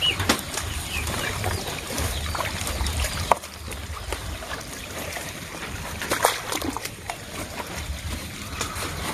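Water sloshing and splashing as a fine-mesh net is gathered and lifted in shallow muddy water, with a few sharp splashes, the clearest about three seconds in and about six seconds in.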